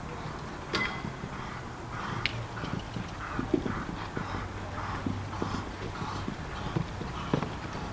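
Horse cantering on a sand arena, its hoofbeats coming in a steady rhythm, with a few sharper knocks in between.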